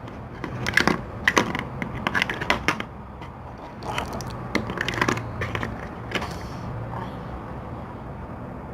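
Small plastic glitter pots being handled and knocked together on a table: quick clicks and knocks in two bursts, which stop about six seconds in.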